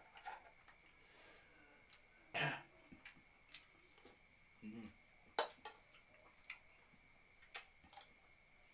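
Close-up eating sounds: scattered clicks and taps of a spoon on a plate and hands handling crispy fried chicken skin, with mouth and chewing noises. A louder rasping sound comes about two and a half seconds in and the sharpest click about five and a half seconds in, over a faint steady high whine.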